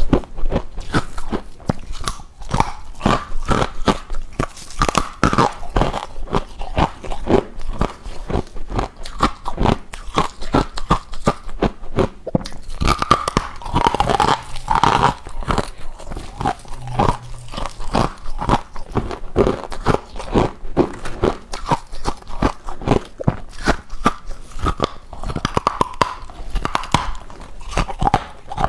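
A person biting and chewing hard frozen ice from a deep freezer: loud crunching, close up, in rapid irregular cracks that go on without a break.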